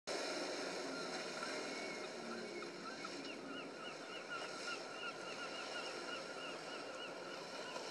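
Sport-fishing boat cruising past, a steady low rumble and water wash, with a bird chirping rapidly, about three calls a second, from about a second in to near the end.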